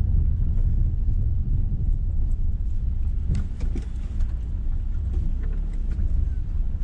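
Steady low rumble of a Renault car's engine and tyres on the road, heard from inside the cabin while driving.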